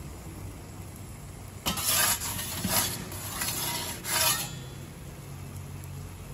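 Metal pizza peel scraping across the stone floor of a Dracarys Nero gas pizza oven in four short strokes as it slides under the pizza to turn it. The gas burners keep up a steady low rush underneath.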